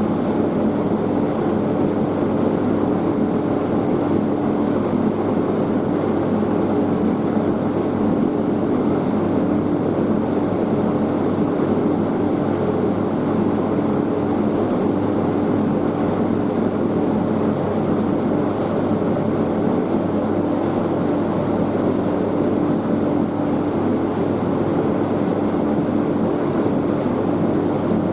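Metal-melting furnace burner running with a steady roar and a low hum, heating brass for casting.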